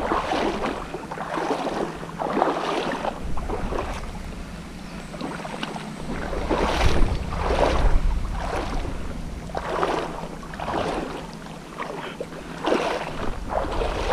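Footsteps wading through shallow seawater, a slosh and splash with each stride, about one a second.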